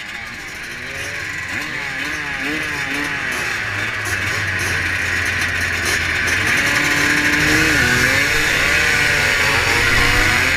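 Several vintage motocross motorcycles revving together at the start of a race. Their engine notes rise and fall against each other and grow steadily louder as the pack pulls away across the field.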